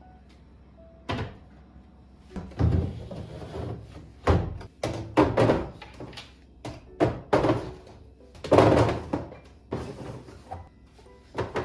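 A series of knocks and clunks, some with short rustling, as objects are handled and set down, over soft background music.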